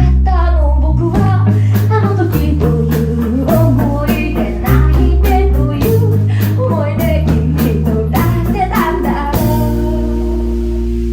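Rock band playing: drums, bass and guitar under a melodic lead line. About nine seconds in, the band hits a chord with a cymbal crash and lets it ring.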